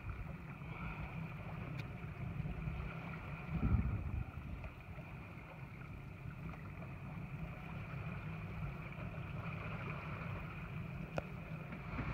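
Boat engine running steadily at idle, a low even rumble, with a brief low thump about four seconds in.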